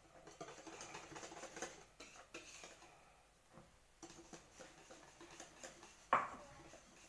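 Faint scraping and light clicking of a hand whisk mixing flour into cake batter in a bowl, stopping briefly midway, with one sharper knock about six seconds in.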